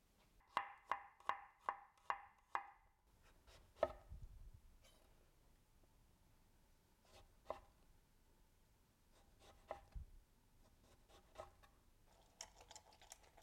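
A kitchen knife slicing a lemon on a wooden cutting board, the blade knocking the board with each cut. A quick, even run of six knocks comes first, then single knocks a second or more apart.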